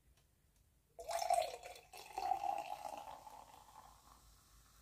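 Liquid pouring or running for about three seconds, starting about a second in and tapering off.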